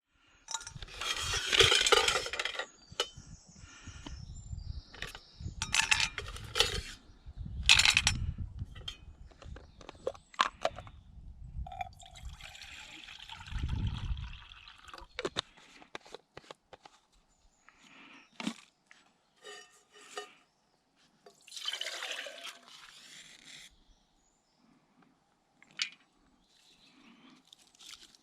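Handling sounds from brewing coffee outdoors: water pouring and splashing, with clinks and knocks of metal camp gear. The sounds come as separate bursts and sharp clicks, loudest in the first ten seconds and sparser near the end.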